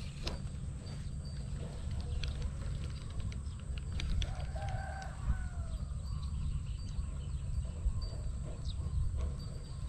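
Wind rumbling on the microphone, with scattered rustles and clicks of hands and rod moving through grass and water hyacinth. A short animal call is heard about four seconds in, lasting about a second.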